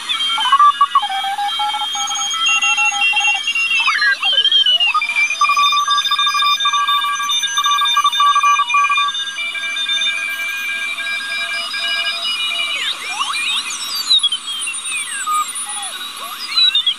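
Sawdust one-transistor super-regenerative shortwave receiver tuned across the 40-metre amateur band, heard through a small speaker. Several Morse code signals beep on and off at different pitches over a steady hiss, and whistles slide up and down in pitch as the tuning knob sweeps past stations.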